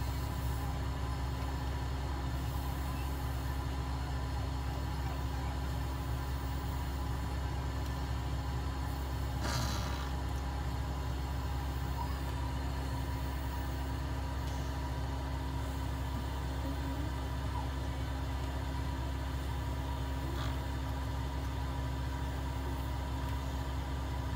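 Veterinary oxygen cage with nebulizer running during a cat's inhalation and oxygen therapy: a steady low mechanical hum with constant tones. There is a brief knock about nine and a half seconds in.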